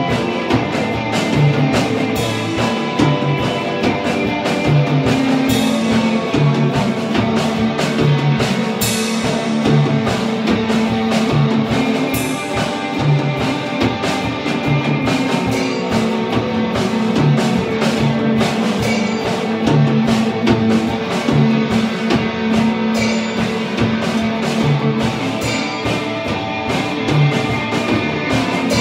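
Instrumental punk and industrial-metal hybrid played live: two electric guitars over a Gretsch drum kit, with a steady beat and cymbal hits.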